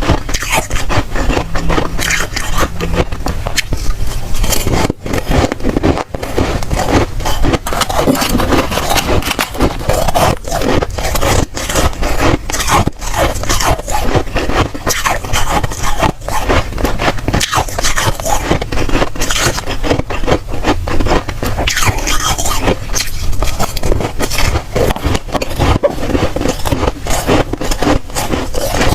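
Dry, soft freezer frost being crunched and scraped close to the microphone: a dense, continuous run of crisp crackling crunches.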